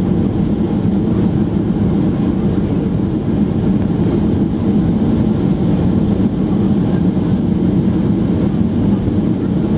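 Steady low rumble inside the cabin of a Boeing 737-800 rolling along the runway just after landing, with its spoilers raised: engine and rolling noise with no distinct events.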